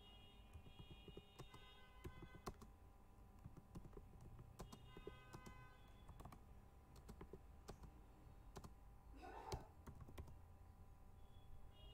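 Faint, irregular keystrokes on a computer keyboard as a sentence is typed. There is a low steady hum underneath, and one brief soft noise about three-quarters of the way through.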